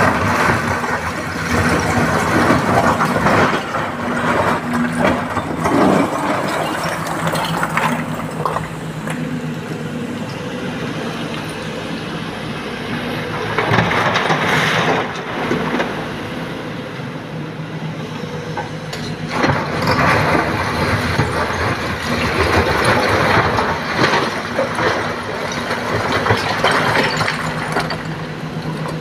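SANY SY225 crawler excavator's diesel engine running steadily under load while its bucket scrapes and scoops broken rock. About halfway through, a load of rock pours with a rattle into the steel body of a tipper truck, and then the digging and rock scraping start again.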